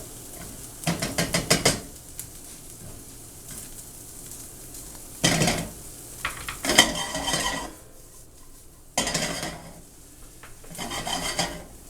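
Utensil stirring and scraping against a pan in five short bursts of quick strokes, with a faint sizzle of food frying underneath.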